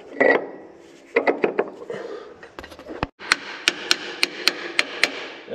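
Hammer tapping a seal-installer tool to drive a new crankshaft seal home in a truck's flywheel housing. A few lighter knocks come about a second in, then a quick even run of about eight sharp taps, roughly four a second, in the second half.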